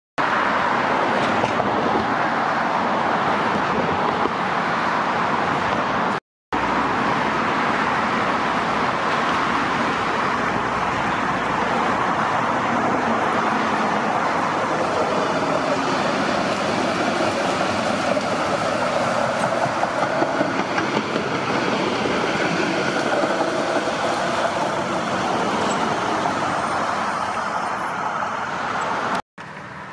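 Steady road traffic on a busy multi-lane highway, a continuous noise of passing vehicles and tyres. It drops out abruptly for a moment twice, about six seconds in and near the end.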